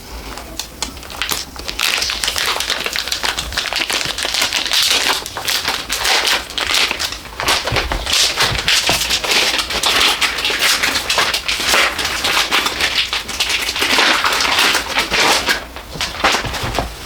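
Packing material of a 3D printer being unpacked by hand: continuous crinkling and crackling with many small clicks, dipping briefly near the end.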